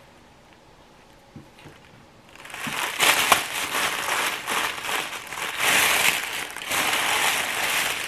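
Tissue paper crinkling and rustling as hands grab it and pull it out of a cardboard box. It starts about two seconds in and stays loud to the end.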